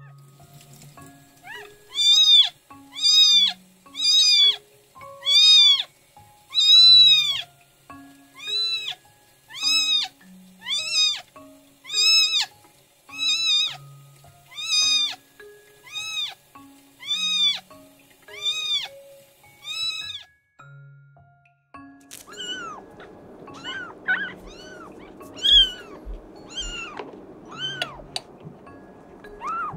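Newborn kitten mewing loudly and repeatedly, about one cry a second, as its rear is rubbed to stimulate it to defecate. About 22 seconds in, a warm-air blower's steady hiss comes in, drying a wet kitten, with its cries still heard over it.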